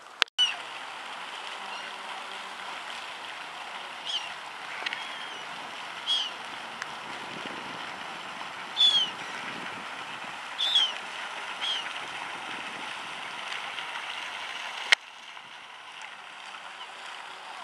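Waterbirds calling, short falling cries every second or two, over a steady background hiss. A sharp click about fifteen seconds in, after which only a quieter steady hiss remains.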